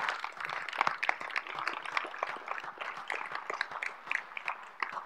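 Audience applauding: many hands clapping, scattered and dense.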